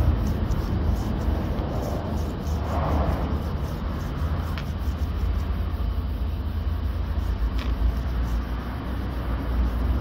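Hand wet-sanding of the painted rear door panel of an Audi A6: repeated rubbing strokes of the pad on wet paint, over a steady low rumble that is the loudest part.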